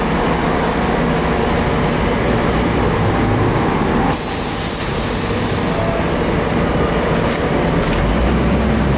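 Lisbon tram running on its rails with a steady low rumble; a sudden hiss cuts in about four seconds in and fades away.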